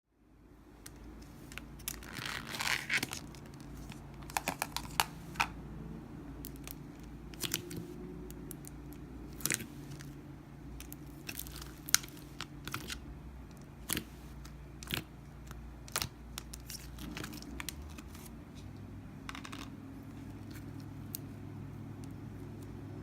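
Hands playing with slime, squishing and stretching it so it gives irregular sticky crackles, clicks and pops, with a denser crackle about two seconds in.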